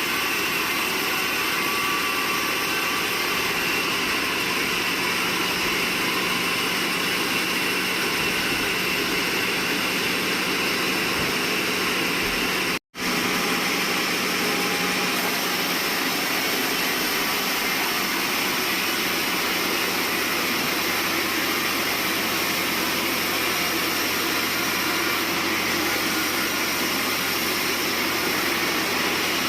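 Steady, loud din of sawmill machinery running, with a constant whine in it. It cuts out for an instant about 13 seconds in, then carries on.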